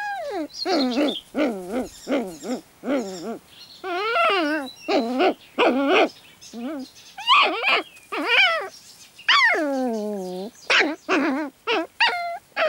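Four-and-a-half-week-old puppies yipping, whining and giving little howls as they play-fight: a quick run of short cries rising and falling in pitch, with one longer falling howl about nine seconds in.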